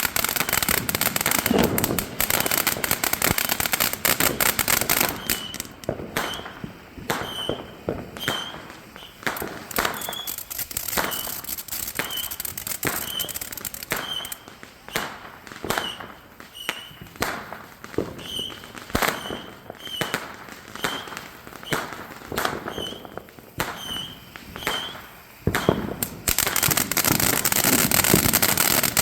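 Fireworks going off: a dense spell of crackling, then a long run of separate sharp bangs about one a second, then dense crackling again near the end.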